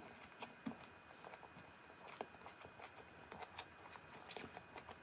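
Near silence with a few faint, scattered small clicks and taps.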